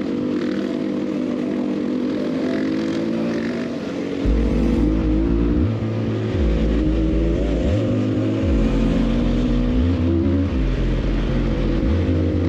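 Enduro motorcycle engine running while being ridden, its pitch rising and falling with the throttle. A heavy low rumble joins it about four seconds in.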